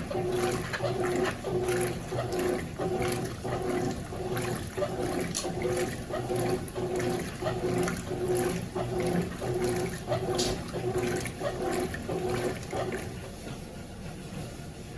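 Consul CWS12 top-loading washing machine agitating a load of jeans: the motor hums in short strokes about one and a half times a second over sloshing water. The agitation stops about thirteen seconds in, leaving a quieter steady noise.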